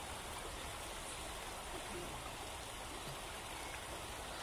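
Shallow river flowing over stones: a faint, steady rush of running water.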